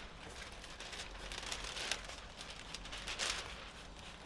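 Rustling and crinkling of thin plastic window tint film being lifted and rolled back off a wet car door window, with a couple of short hissy rustles partway through.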